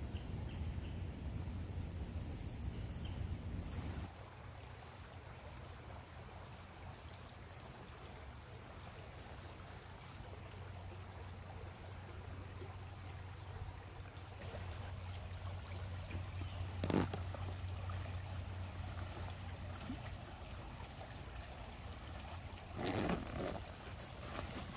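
Outdoor ambience: a low rumble, joined about four seconds in by a steady high-pitched insect drone, with two brief louder noises, one about 17 seconds in and one near the end.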